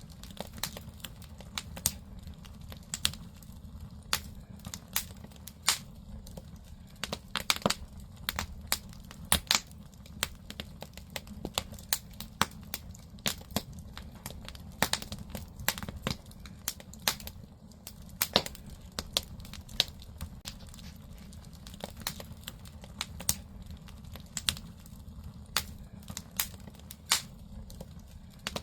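Firewood burning in a traditional Korean agungi firebox, crackling with irregular sharp pops, some much louder than others, over a steady low rumble.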